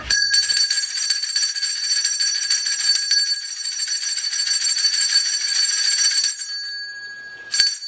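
Small handheld metal bell shaken rapidly and without pause for about six seconds, a high bright ringing, rung to summon someone; it fades, then is struck once more near the end.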